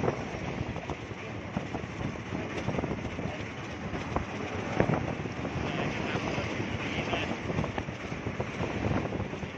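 Heavy trucks passing on a highway: a steady rumble of diesel engines and tyres on the road, with wind buffeting the microphone.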